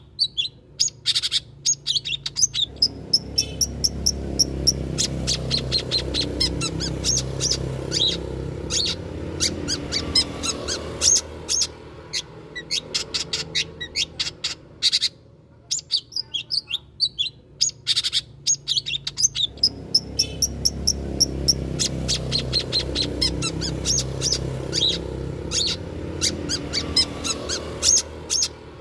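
Long-tailed shrike (cendet) song: a fast, continuous run of sharp chirps and short trills, played as a lure recording, with the same passage coming round again about every 17 seconds. A low rumble swells and fades beneath it.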